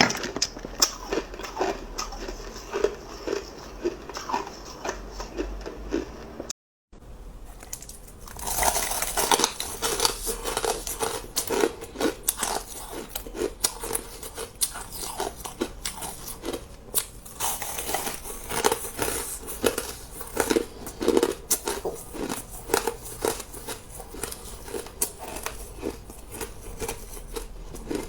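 Hard ice being bitten and chewed, close-miked: many sharp crunches in quick, irregular succession. A brief dead gap about six and a half seconds in, after which the crunching is louder and brighter.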